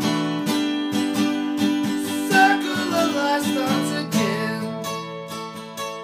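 Two acoustic guitars strummed together in a steady rhythm, with a man's voice singing a short line about halfway through.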